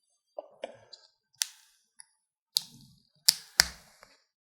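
Handling the pried-open 35mm film cassette and its parts: a scattered series of sharp clicks and light knocks, the two loudest a little over three seconds in.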